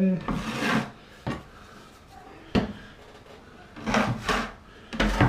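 A drywall knife scraping joint compound: several short rasping scrapes, with two sharp clicks in between.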